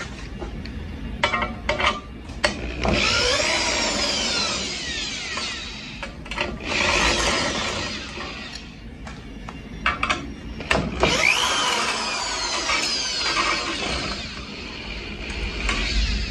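Cordless drill with a long hex nut-driver extension backing hex-head self-tapping screws out of layered sheet steel. After a few handling clicks it runs in about three bursts, its whine sliding up and down in pitch.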